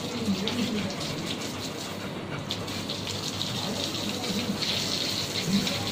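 Water running from a hose and splashing onto a wet dog's coat and the floor: a steady gushing hiss.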